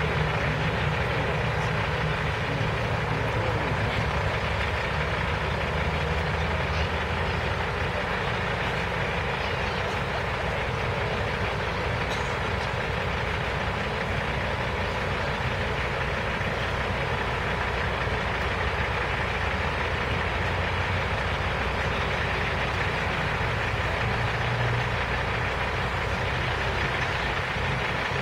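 Semi truck's diesel engine idling steadily, with an even background noise.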